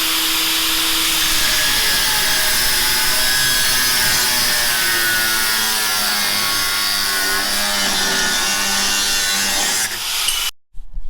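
Handheld power tool cutting or grinding sheet steel, running steadily with its pitch drifting under load, then stopping abruptly about ten seconds in.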